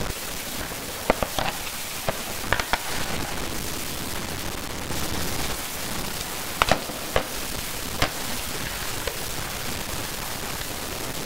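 Steady hiss with scattered sharp clicks and crackles, a cluster in the first three seconds and a few more after about six seconds.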